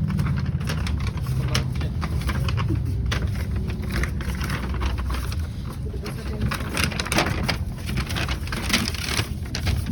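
Tram running on its rails, a steady low rumble with frequent short clicks and rattles.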